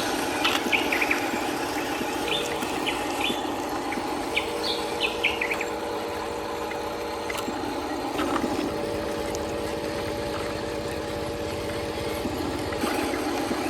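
Electric motors and gearboxes of radio-controlled toy construction machines whining steadily, the pitch shifting a few times. Birds chirp over it during the first half.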